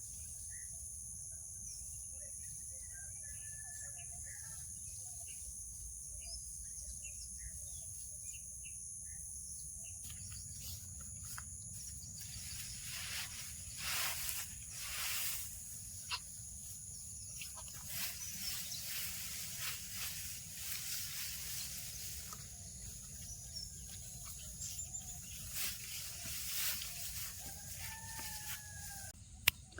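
Rural field ambience: birds calling in short chirps over a steady high insect drone. From about ten seconds in, intermittent rustling and crackling noises come and go.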